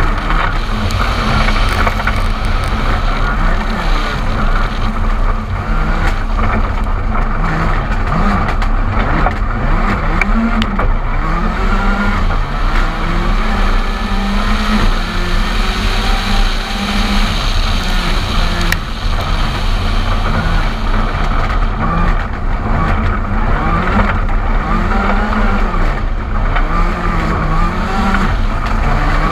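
Ford Fiesta R5 rally car's turbocharged 1.6-litre four-cylinder engine driven hard, its pitch rising and falling again and again as it revs up, changes gear and comes off the throttle. A steady rush of wind and road noise runs underneath.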